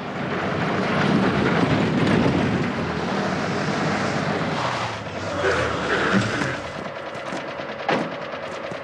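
A military jeep's engine running as the jeep drives up and pulls to a stop, then idling with an even rhythm. A single sharp knock about eight seconds in.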